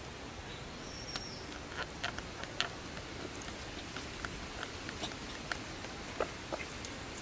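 Leafy twigs rustling and snapping in light, irregular ticks as a baby monkey climbs and grabs at them, over a steady outdoor hiss. A brief high chirp comes about a second in.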